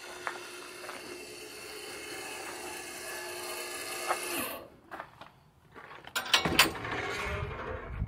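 A steady mechanical hum that stops abruptly about halfway through. Then a metal-framed wooden gate is unlatched and swung open, with a cluster of loud clanks and rattling near the end.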